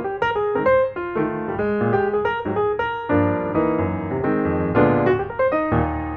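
Background piano music: a quick run of single notes, then fuller held chords from about halfway through.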